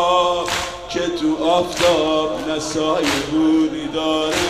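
A man chanting a Persian Shia mourning lament (maddahi), holding long wavering notes, over a regular thump about every second and a quarter.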